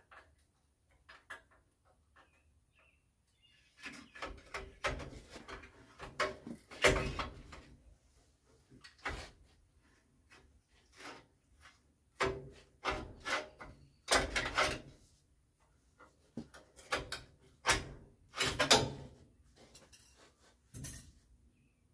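Irregular metallic clanks, knocks and scraping rattles of metal parts being worked loose and handled by hand on a stripped truck body, coming in clusters a few seconds apart.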